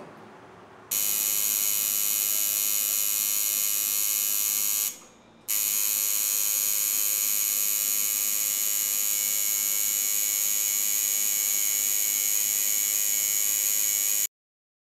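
Electric tattoo machine buzzing steadily. It stops for about half a second around five seconds in, runs again, and cuts off abruptly about a second before the end.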